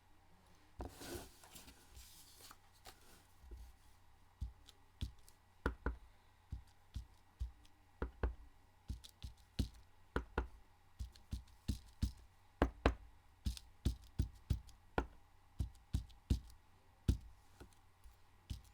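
A small rubber stamp tapped over and over on an ink pad and pressed onto cardstock to print dots: a string of light knocks, about two a second, with a brief rustle of handling near the start.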